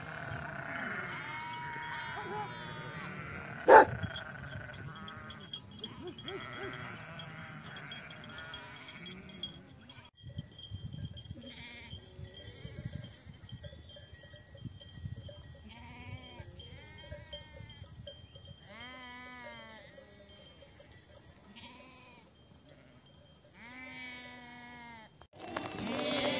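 A flock of sheep bleating, with several quavering calls over one another and more spaced-out single bleats in the second half. There is one sharp knock about four seconds in.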